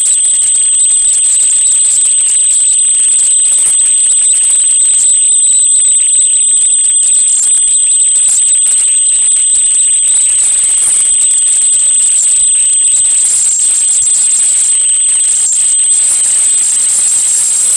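Loud, steady high-pitched electronic tone over a constant hiss, unchanging throughout.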